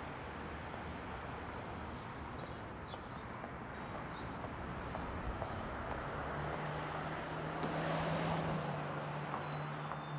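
Outdoor street traffic: a steady rush of passing vehicles that swells about eight seconds in, with a low steady engine hum from about six seconds in and a few short high chirps.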